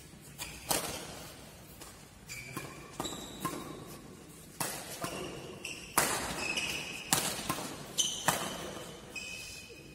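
Badminton rackets striking a shuttlecock again and again through a doubles rally: about a dozen sharp smacks that echo in a large hall. Between the hits come short, high squeaks of court shoes on the floor.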